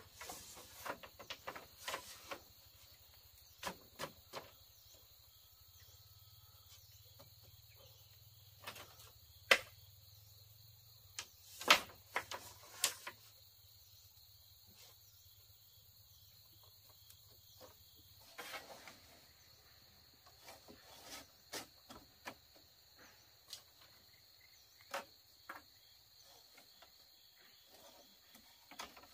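Insects chirring steadily in the background, with scattered sharp knocks and clicks at irregular intervals. The loudest come about ten seconds in and in a cluster around twelve seconds in.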